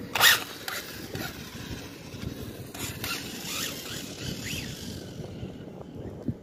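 WLtoys 124017 RC car launching at full throttle. There is a sudden loud burst of tyre and motor noise about a quarter second in, then fainter, rising motor whines as it speeds away down the lot. Wind noise on the microphone throughout.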